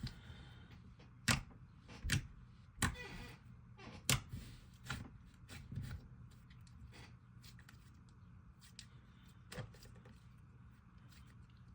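Fluffy slime being squished and poked by hand, giving off sharp pops and clicks, several in the first six seconds and one more near the end, with fainter crackling between.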